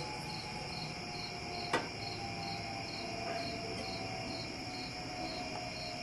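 Crickets chirping steadily in an even rhythm of about three chirps a second, over a steady high insect drone. A single sharp knock about two seconds in.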